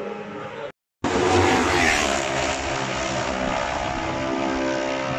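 Road-racing motorcycle engines at high revs. After a brief dropout to silence just under a second in, a bike passes loud and close, and a steady engine drone follows.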